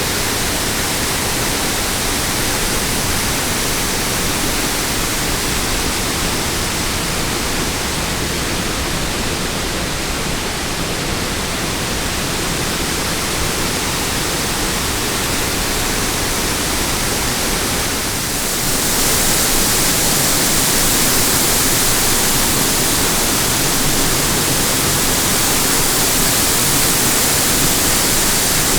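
Kaminari Falls waterfall: a loud, steady rush of falling water. About two-thirds of the way through it grows louder and hissier.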